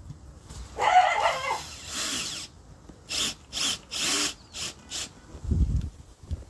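Power drill running, first in one longer run and then in about five short bursts, as it drives screws or drills holes. A couple of low knocks follow near the end.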